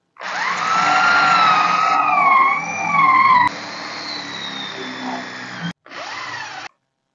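Corded electric drill with a flat spade bit boring into the edge of a wooden door: the motor whine sweeps up as it spins up and its pitch wavers under load. It runs quieter after about three and a half seconds, stops briefly near six seconds, runs again for a moment and stops.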